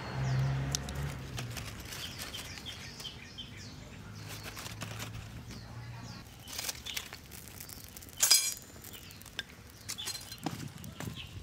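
Newspaper and twigs catching fire in a brick barbecue pit, the flames crackling with scattered snaps and one louder snap about eight seconds in. Small birds chirp in the background.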